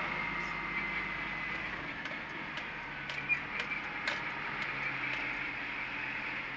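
Isuzu NPS 75/155 4x4 truck's diesel engine and tyres on a gravel track, heard from inside the cab as steady running noise. In the middle comes a run of light ticks, about two a second.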